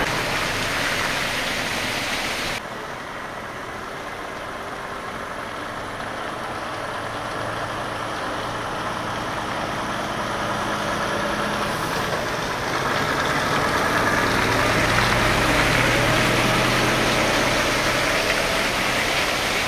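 Heavy truck diesel engine running close by with a steady hum, growing louder about two thirds of the way through.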